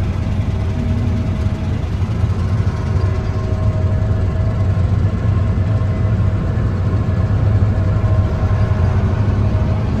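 New Holland combine harvester running steadily while cutting wheat, heard from inside the cab: a continuous low engine and machinery hum with a faint steady whine above it.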